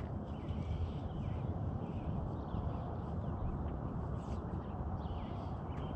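Birds chirping faintly at intervals over a steady low rumble.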